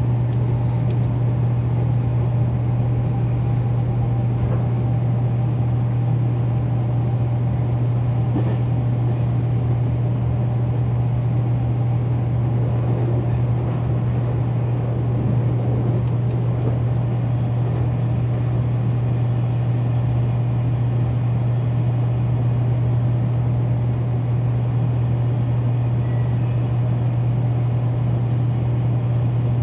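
Local electric train on the Kagoshima Main Line running steadily, heard from inside the front car: a constant low hum with a running rumble over it, holding even with no change in speed.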